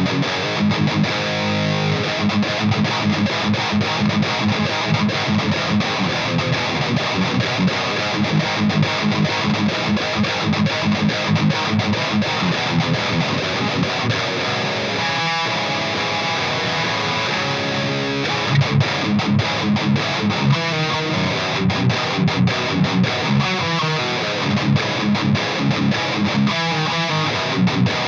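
High-gain distorted electric guitar riffing through an EVH 5150 III LBX tube amp head, played on a Solar A1.6 with lower-output Solar pickups and an Evertune bridge, tuned to D. Heavy low-string riffs with quick rhythmic pulses.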